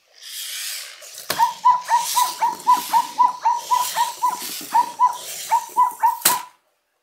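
Zoomer robot dog toy dancing on command. Its motors whir as it spins, and its speaker plays a quick run of short, downward-chirping electronic beeps, about three a second, with a sharp click as the routine starts and another as it stops.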